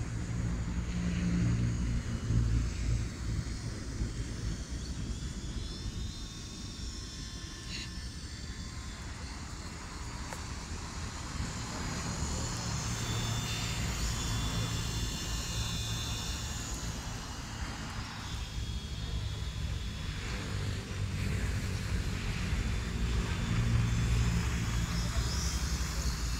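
MJX F45 radio-controlled helicopter flying, its electric motor and rotor giving a thin high whine that shifts in pitch as it manoeuvres, over a low rumble of wind on the microphone.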